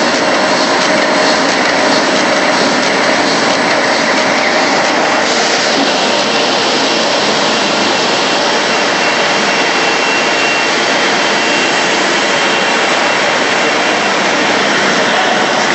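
Automatic A4 copy-paper roll-to-sheet cutting machine running: a loud, steady mechanical noise with no distinct cutting strokes, joined by a faint high whine from about the middle.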